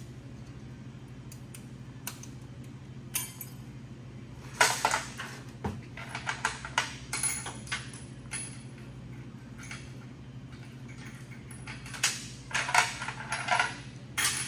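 Metal hand tools and transmission parts clinking and clattering against each other and the steel workbench during disassembly of a 4L60E transmission, in two spells of quick clinks, one from about four to eight seconds in and one near the end, over a steady low hum.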